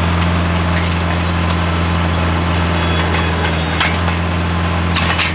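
Compact tractor engine running steadily under load while it drives a PTO post-hole auger boring into rocky clay. A few sharp knocks come near the end.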